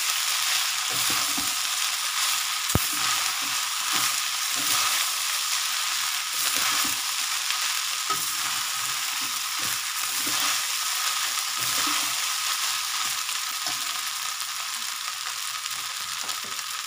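Cooked rice being stirred into fried onions in hot oil in a pan: a steady sizzle under irregular scraping strokes of the spoon, with one sharp knock of the spoon on the pan about three seconds in.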